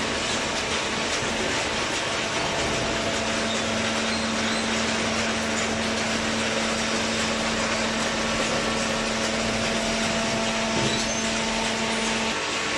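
Vertical hydraulic waste paper baler running, with a steady machine hum and a constant hiss; the main hum drops out shortly before the end.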